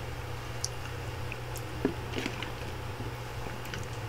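Faint scattered clicks and taps of fingers handling small scratch-built model seat parts on a cutting mat, over a steady low hum.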